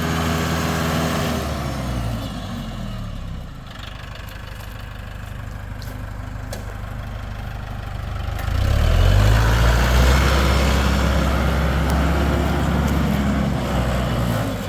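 Tractor engine running: about two seconds in its speed drops and it settles lower and quieter, then about eight seconds in it revs up and holds at a higher, louder speed.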